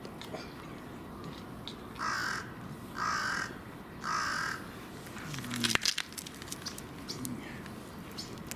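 A crow cawing three times, harsh calls about a second apart, followed a moment later by a brief clatter of sharp knocks.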